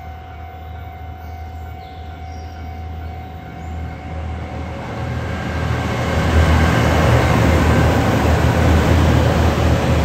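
JR Shikoku 2700 series diesel multiple unit approaching and passing close by, its low engine rumble and wheel-on-rail noise swelling to loudest about six seconds in and staying loud as the cars go past.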